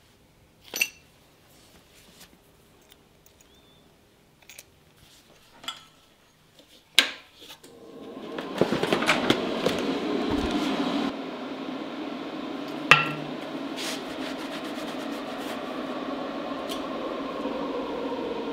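Scattered sharp clicks and clinks of small TIG torch parts being handled as the torch is put together. About halfway a steady, fuller sound sets in and continues, louder for its first few seconds.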